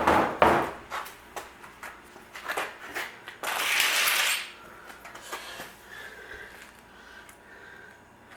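Two hard blows from a hammer (a 'persuader') on the VW swing-axle suspension parts right at the start, followed by lighter metal knocks and clinks. About three and a half seconds in comes a scraping rush lasting about a second, then only faint handling sounds.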